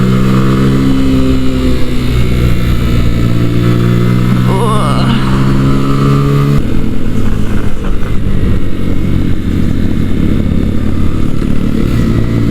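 Sinnis Akuma 125cc motorcycle engine pulling steadily under way, heard from the rider's helmet. About six and a half seconds in its steady note breaks off abruptly into a rougher, lower sound, as when the throttle is closed or a gear is changed.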